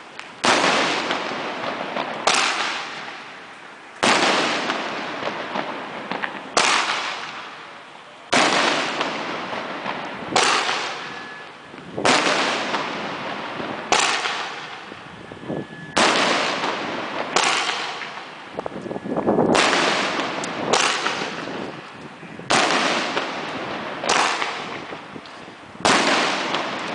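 Aerial fireworks bursting one after another: about fifteen sharp bangs, roughly one every two seconds, each fading out before the next.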